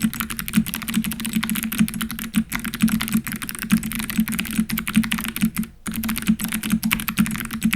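Continuous fast typing on a mechanical keyboard fitted with heavy metal keycaps over clicky Kailh Box Navy switches: a dense stream of sharp clicks over a deep, low clack, with one brief pause about two thirds of the way through.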